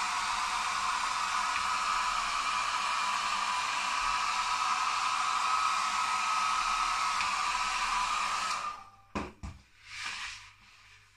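Hair dryer with a diffuser attachment blowing steadily with a faint whine, switched off a little over three-quarters of the way through. Two short knocks and a brief rustle follow.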